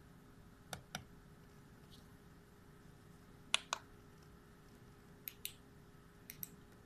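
Four pairs of sharp small clicks, the two clicks of each pair about a fifth of a second apart, over a faint steady hum.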